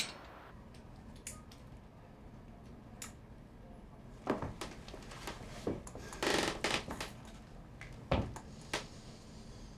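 Light clicks and knocks, then the rustle of a heavy bag being shifted and carried, with a thump a little after eight seconds in.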